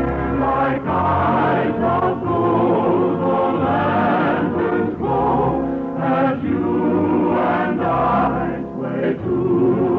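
A choir singing a waltz with orchestral accompaniment, on an old radio broadcast recording.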